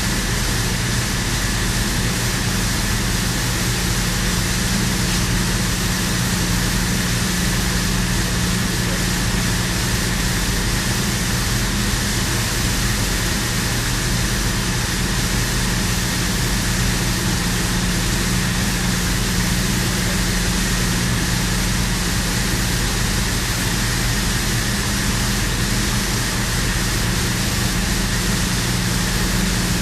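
Steady, loud drone of industrial plant machinery: a low hum with a thin high whine over a constant rush of noise.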